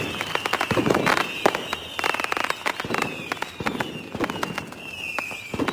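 Fireworks going off: a dense run of sharp bangs and crackling pops, with a high falling whistle that comes back every couple of seconds.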